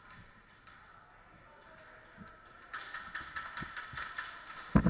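A rapid patter of clicks and taps starting about halfway through, then one loud low thump just before the end.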